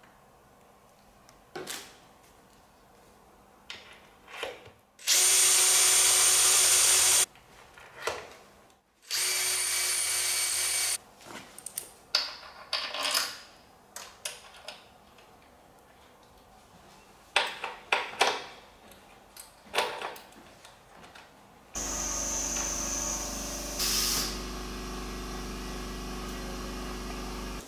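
Cordless drill running in two short steady bursts of about two seconds each, then a longer steady run near the end. Clicks and knocks of hand tools and metal parts come in between.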